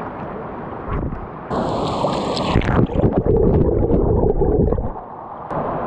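Shallow rocky stream rushing below a waterfall. About a second and a half in, the microphone plunges into the current with a splash. For about two seconds the sound turns to a muffled underwater gurgle and rumble, then it surfaces near the end to open-air rushing water.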